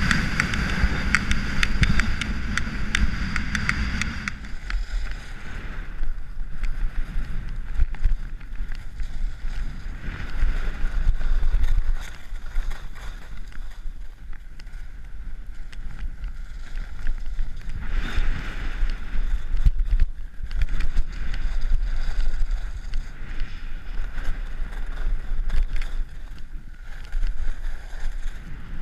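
Skis scraping and sliding over groomed snow at speed, coming in surges, with wind rumbling on the microphone throughout.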